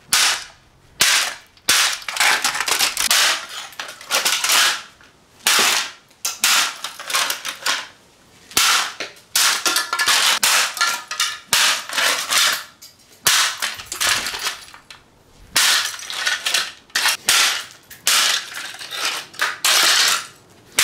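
Plastic box fan being smashed: repeated hard blows, roughly one a second and irregular, with cracking and rattling plastic between them.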